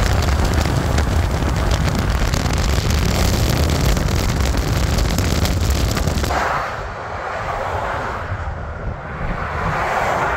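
A Freightliner Cascadia car-hauler tractor-trailer going by close on the downgrade, its diesel engine brake on, a loud deep rumble with rapid crackle. About six seconds in it cuts abruptly to a quieter, more distant truck rumble.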